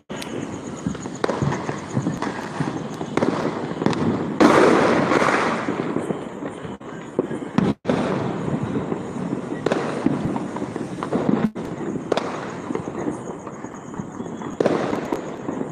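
Many firecrackers and fireworks going off at once, a continuous crackle of bangs and pops near and far, with a louder burst about four and a half seconds in.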